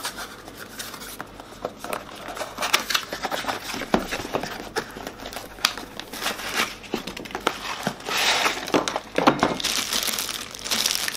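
A cardboard product box being handled and its end flap opened, with scattered scrapes and clicks, then the plastic bag wrapped around a water-cooling reservoir crinkling more densely near the end as the reservoir is pulled out.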